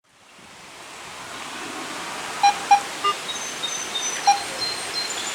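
Metal detector sounding a series of short beeps at the same pitch, four of them within about two seconds, over a steady rush of river water that fades in at the start.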